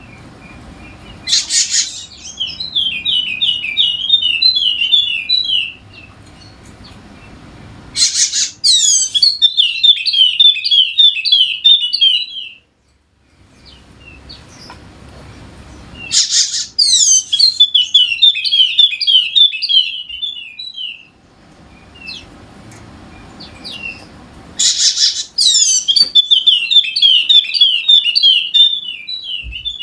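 Yellow-spectacled (Wallacean) white-eye singing in four loud bouts about eight seconds apart. Each bout opens with a sharp high burst, then runs into about four seconds of fast, chattering twittering notes.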